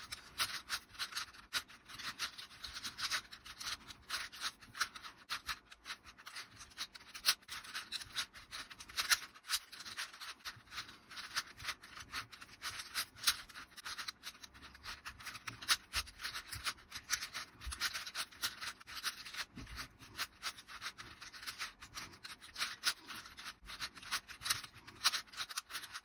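4x4 Rubik's cube being turned rapidly by hand: a dense, unbroken run of small plastic clicks and scraping as its layers rotate.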